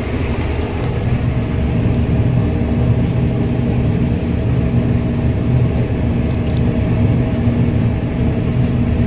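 New Holland TR96 combine running steadily while threshing, a constant engine and machinery drone with a steady hum, heard from inside the cab.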